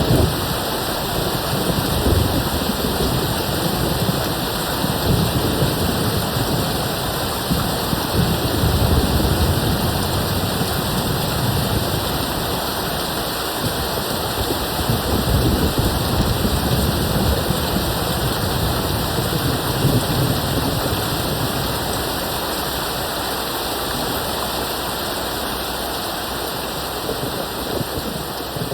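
Steady rain with low rumbles of distant thunder swelling and fading several times.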